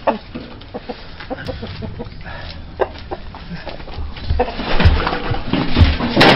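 Chickens clucking among irregular knocks and scuffling, busiest and loudest in the last two seconds.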